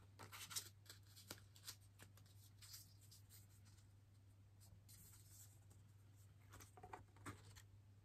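Faint rustling and soft taps of cardstock art cards being handled and slid into a paper sleeve, a few in the first second or two and again near the end, over a low steady hum.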